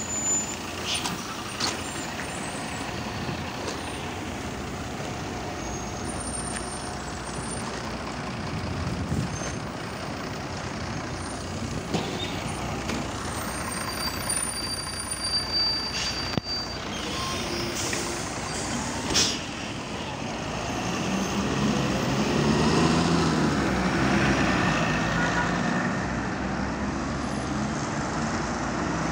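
City diesel buses at a stop: a MAZ 103.465 bus idles with sharp hisses of compressed air and a brief high beep. About twenty seconds in, its engine rises in pitch and gets louder as it pulls away.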